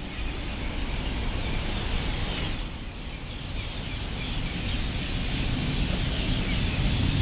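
A large flock of hundreds of birds chattering together in many overlapping chirps, over a steady low rumble.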